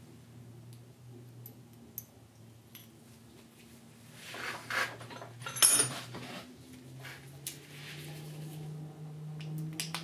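Small metal clicks and light rattling as a golf-cart carburetor is handled and probed with a thin wire. Midway there is a short rushing hiss, and a low steady hum runs underneath.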